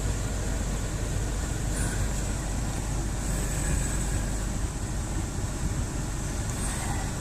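Steady idle of a 2010 Subaru Impreza's freshly installed 2.5-litre naturally aspirated flat-four engine.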